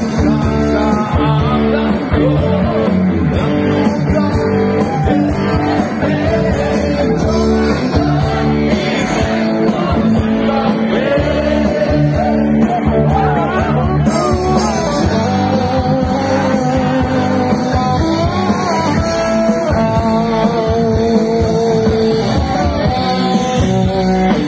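Live rock band playing loud: a sung vocal over electric guitar, bass and drums, with a steady cymbal beat through the first half.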